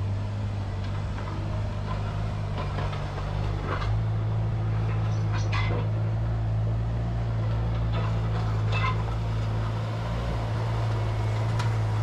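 ASV RT-60 compact track loader's diesel engine idling steadily, with a few faint clinks over the hum.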